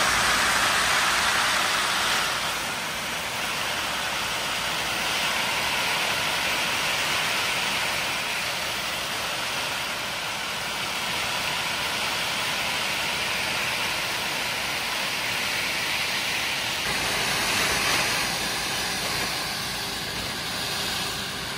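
Barley seed pouring from a bulk bag into a seed drill's hopper: a steady hissing rush of grain, loudest for the first two seconds or so and then settling to a softer, even flow.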